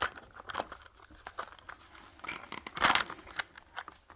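Wrapping of a toy surprise ball being crinkled and torn open by hand, in irregular rustles with a louder rip about three seconds in. The layer is tough to open.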